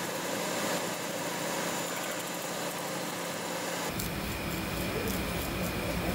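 Kitchen knife scraping the scales off a scorpionfish on a cutting board, over a steady machine-like hum. The quick, repeated scraping strokes stand out from about four seconds in.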